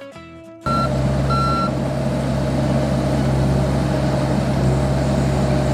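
John Deere 60G compact excavator running steadily at working throttle, cutting in about half a second in, with its travel alarm giving two short high beeps just after.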